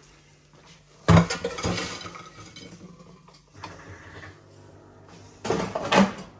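Metal air fryer basket and ceramic plate clattering as chicken and fries are tipped out: a sharp knock about a second in with rattling after it, then another loud clatter near the end.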